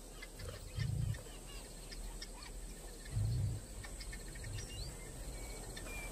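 Bush ambience: scattered bird chirps over a steady high insect drone. Two short, low, soft sounds come about a second in and about three seconds in.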